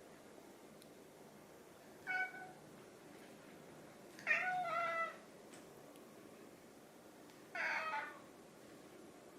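Domestic cat meowing three times, a short call, then a longer two-part call, then another, begging to be fed because it is hungry.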